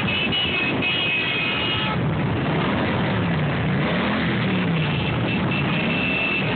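Several cruiser motorcycles riding past in a slow procession, their engines running and revving up and down, with a few steady high tones in the first two seconds and again near the end.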